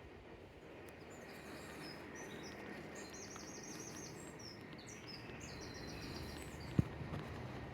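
A small songbird singing two short, high trilled phrases over a steady low outdoor background noise, with one sharp click near the end.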